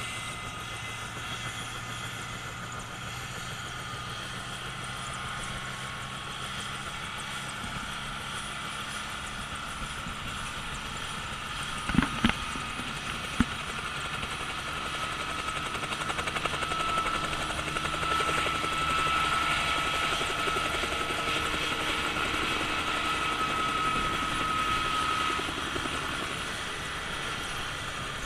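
Helicopter engine and rotor running steadily, growing louder for several seconds past the middle with a faint steady whine, then easing. Two sharp knocks about twelve seconds in.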